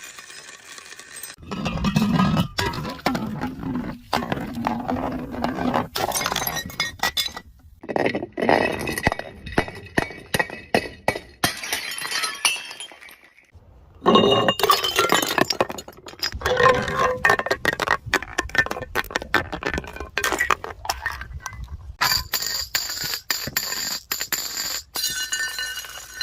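Glass bottles and jars smashing, one after another: many sharp crashes followed by clinking, ringing shards, with abrupt cuts between takes and a brief pause about halfway through.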